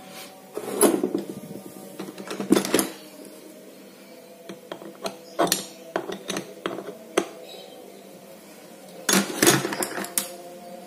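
Small metal parts of a fishing reel clicking, tapping and scraping against tools as the reel is taken apart, in several short clusters of sharp clicks.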